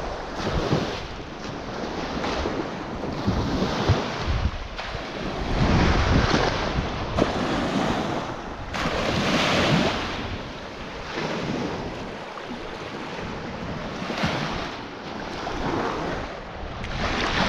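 Lake Michigan waves washing onto a sandy beach, the surf swelling and easing every few seconds, with wind rumbling on the microphone.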